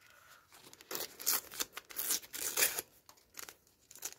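Plastic wrapper of a Topps sticker packet crinkling and tearing as it is pulled open by hand, in a quick run of rustles starting about a second in.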